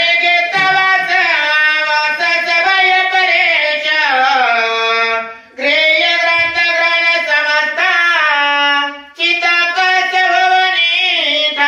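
A man singing a Marathi devotional verse (ovi) with no accompaniment heard, in long held, ornamented phrases, breaking for breath twice.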